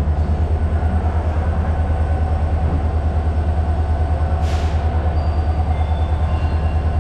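A train's engine running steadily with a loud, low, pulsing rumble. A brief hiss of air comes about four and a half seconds in.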